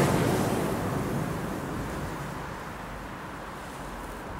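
Red firework flare burning with a steady rushing hiss, growing gradually fainter.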